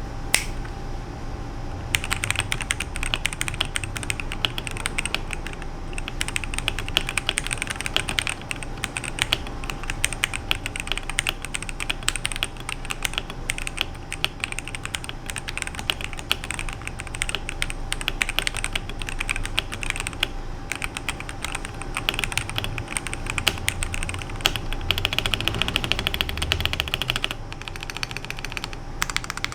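Rapid, continuous typing on a WEIKAV WK75 gasket-mounted mechanical keyboard with a polycarbonate plate and stock, unlubed K Yellow Pro linear switches. It starts with a single click, and the steady keystrokes begin about two seconds in.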